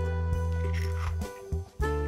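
Instrumental background music with a steady bass line; it drops away for a moment about a second and a half in, then resumes.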